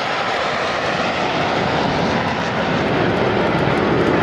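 A formation of five Aermacchi MB-339PAN jet trainers flying past, their Rolls-Royce Viper turbojets making a steady, loud jet noise that deepens toward the end.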